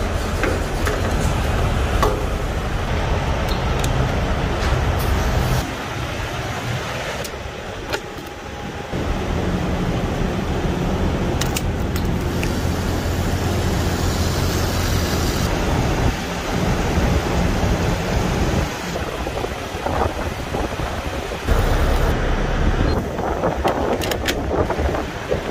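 Steady low hum of an idling diesel semi truck at a fuel island, with clicks and knocks of the fuel nozzle being handled. The sound changes abruptly several times.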